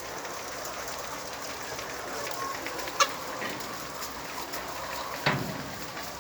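A flock of laying hens clucking and chattering steadily, with a sharp click about three seconds in and a louder, brief call a little after five seconds.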